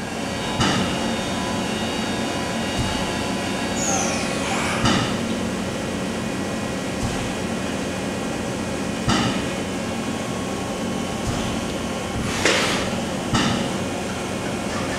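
Matsuura ES-550V-PC2 vertical machining center running with a steady hum. A falling whine comes about four seconds in as the spindle winds down, and there are sharp clunks every few seconds from the automatic tool changer searching for a tool.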